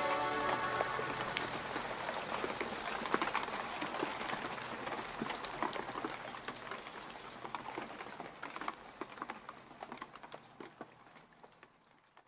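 Rain falling, many separate raindrops pattering over a steady hiss, fading out gradually over the last few seconds.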